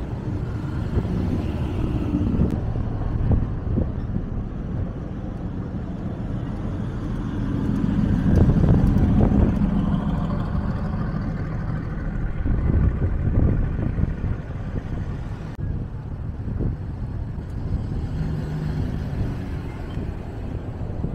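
Car engines running as cars move past at close range, with a louder swell about eight to ten seconds in.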